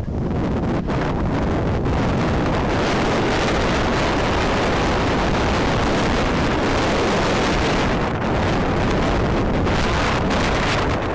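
Steady, loud rush of wind buffeting a moving camera's microphone while it slides down a ski slope, with the hiss of sliding over snow mixed in.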